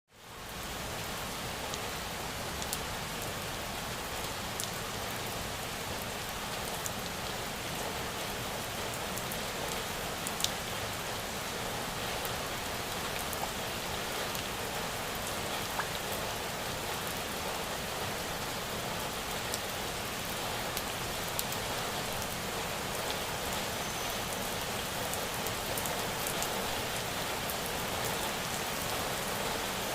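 Steady rain falling, with scattered sharper drops ticking close by. It fades in over the first second.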